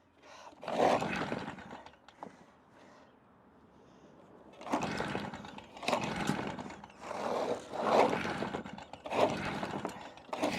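Stihl BR380 backpack blower being pull-started over and over: one recoil pull about a second in, then a run of pulls about a second apart. The engine cranks but never catches, a hard-starting engine that the owner suspects has lost compression.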